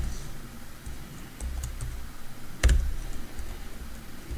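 Computer keyboard typing: a few scattered keystrokes, with one sharper click a little under three seconds in.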